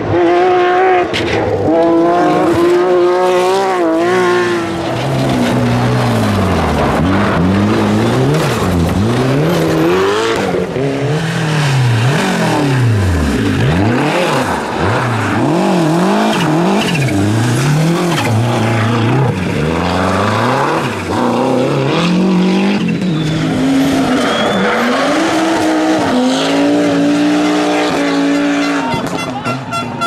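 Rally cars, among them a Porsche 911 and a Lancia Delta Integrale, driven hard in turn on stage. The engines rev high at first, then rise and fall over and over through gear changes and throttle lifts, with tyre and gravel noise.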